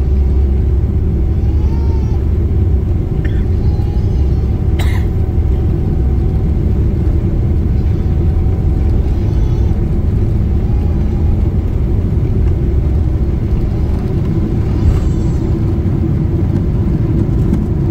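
Steady low rumble of a Boeing 777's jet engines and rolling airframe, heard inside the cabin as the airliner moves on the ground. Faint cabin voices come and go, and there is a single sharp click about five seconds in.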